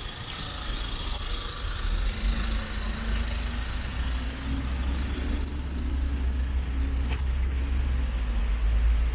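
City road traffic on a rainy street: a motor vehicle's engine running close by, its low rumble growing stronger about halfway through, over a steady hiss of rain and tyres on the wet road.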